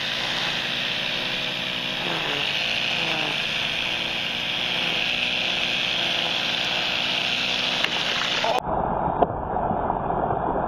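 A steady engine-like hum with a high hiss. About eight and a half seconds in it cuts to a slowed-down, muffled replay in which a bass strikes a topwater popper with a sharp splash.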